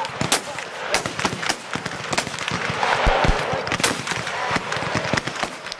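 Black-powder muskets firing irregularly along a firing line: sharp shots, several a second at times, overlapping into a dense crackle near the middle.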